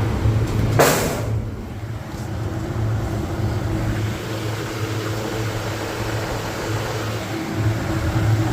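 Walk-in cooler condensing unit giving a steady low electrical-mechanical hum, on a unit whose compressor is not running. A short loud rush of noise comes about a second in.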